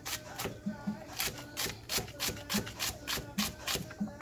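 Chef's knife chopping celery on a plastic cutting board: a steady run of crisp cuts, about three a second, each ending in a tap of the blade on the board.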